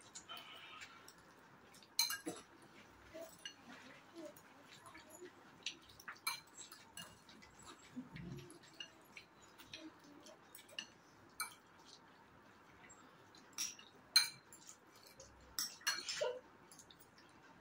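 Forks clinking and scraping against ceramic bowls while several people eat noodles quickly: light, irregular clinks scattered throughout, with a brief pitched sound near the end.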